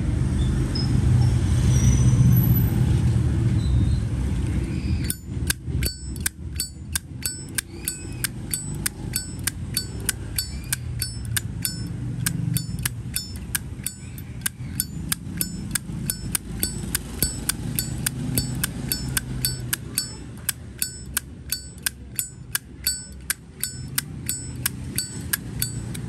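A Zippo windproof lighter's hinged lid flipped open and snapped shut over and over: a rapid series of sharp metallic clicks, about three a second, each ringing briefly. The clicking starts about five seconds in.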